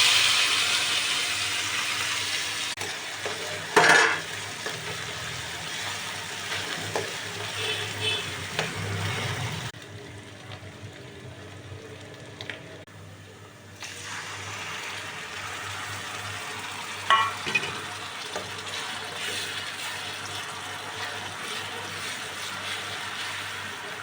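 Food sizzling in hot oil in a pan while being stirred. The sizzle starts loud and suddenly, then slowly fades, and two sharp clatters of a spatula against the pan come about four seconds in and again later. The sizzle drops away for a few seconds in the middle, then returns.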